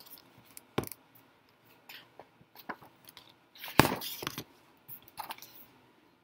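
Picture book being handled and turned round: paper pages rustling and a few sharp taps and knocks, the loudest about four seconds in.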